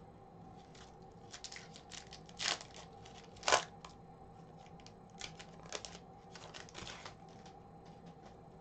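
Foil wrapper of a hockey card pack being torn open and crinkled: short crackles, with two louder rips about two and a half and three and a half seconds in and more crinkling a little later.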